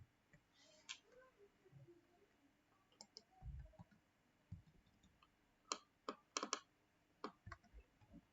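Faint computer mouse clicks, scattered and sometimes in quick pairs, with a few soft low thumps.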